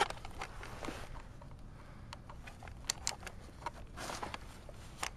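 Gloved hands handling and connecting the plastic parts and cord of a tire-sealant inflator: scattered light clicks and rustles, with a short louder rustle about four seconds in.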